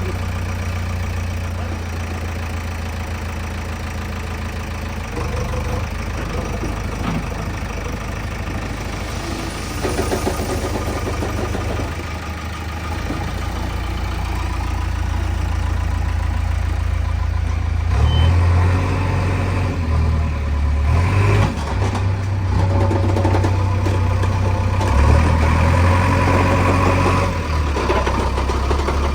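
JCB machine's diesel engine running at a steady idle, then revving up and down repeatedly from about halfway through as it works its hydraulics loading mud.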